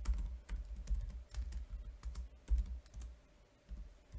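Typing on a computer keyboard: a run of irregular key clicks, each with a dull thud, and a brief pause about three seconds in.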